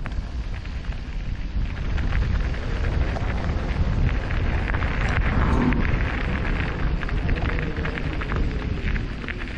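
Wind buffeting the microphone over a steady low rumble, with tyres crackling over a gravel trail as an e-mountain bike rides along.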